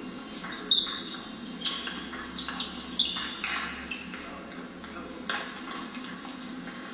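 Table tennis ball in a rally: quick sharp clicks of bat strikes and table bounces, some with a short high ping, from about a second in until about three and a half seconds, then a single click about five seconds in. A steady low hum runs underneath.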